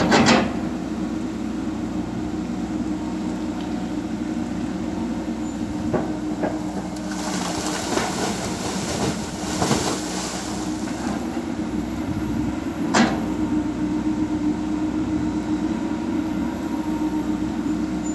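Komatsu PC200 hydraulic excavator's diesel engine running steadily while it works, with sharp knocks near the start and about 13 seconds in. From about 7 to 10 seconds in, a rushing splash as a bucketload of soil is dropped into the pond's muddy water.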